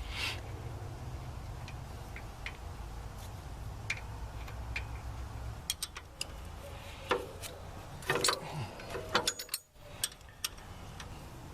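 Scattered metal clicks, clinks and knocks as bolts and parts are worked loose by hand on a compact tractor's backhoe mounting frame, thickest in the second half. A low steady hum underneath stops about halfway through.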